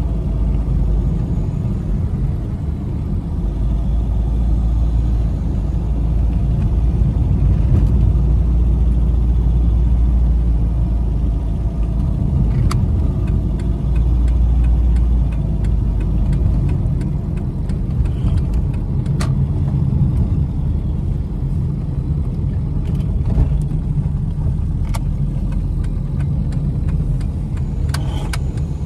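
Dodge Neon Sport Coupé's four-cylinder engine and tyre noise heard from inside the cabin while driving, a steady low rumble. A few sharp clicks come in the second half.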